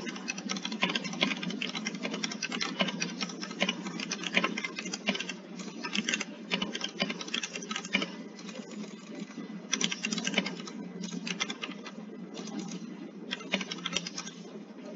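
Rapid typing on a computer keyboard, heard over a video call, with steady low background noise underneath. The keystrokes run almost continuously for about eight seconds, then come in shorter bursts with pauses.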